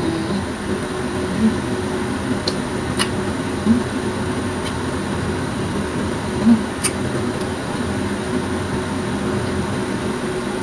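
Steady mechanical hum of a fan or air conditioner, with faint wet clicks of grapes being chewed and a few short closed-mouth hums.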